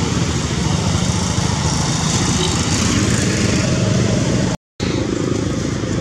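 A motor running steadily nearby, with a brief gap about four and a half seconds in.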